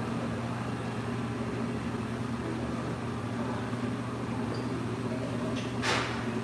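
Steady low hum, with a short hiss near the end.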